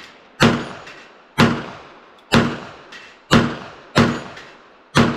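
Six .22 Magnum pistol shots from a Kel-Tec PMR-30, fired at a steady pace about one a second, each a sharp crack with a short ringing decay. The rounds are five-year trunk-stored CCI and Federal 30-grain ammunition, all firing normally.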